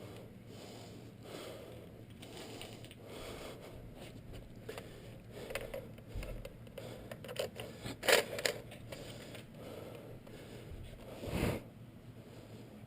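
Low rustling and scraping, with two sharp knocks close together about eight seconds in and a shorter, louder knock near the end.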